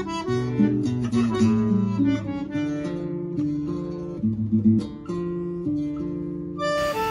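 Background music led by plucked acoustic guitar, with held melody notes over it; near the end it changes to a different passage.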